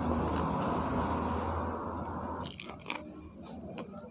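Close-up chewing of pork curry and rice, picked up by a clip-on microphone on the eater's shirt. About two and a half seconds in it turns to a string of crisp crunches and clicks.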